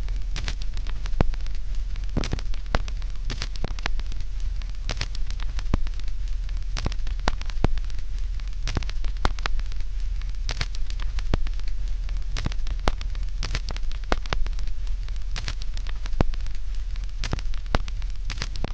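Continuous, irregular crackling and popping over a steady low hum.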